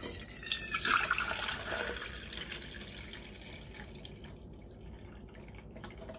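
Kombucha poured from a bottle through a metal mesh strainer into a steel cup. The stream splashes heaviest in the first few seconds, then thins to a trickle and drips.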